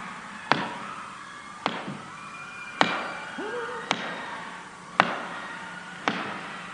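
A sharp percussive strike about once a second, six in all, keeping a slow steady beat, over faint crowd noise with a few distant shouts.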